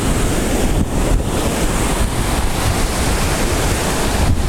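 Ocean surf washing steadily at the shoreline, with wind buffeting the microphone as a heavy rumble.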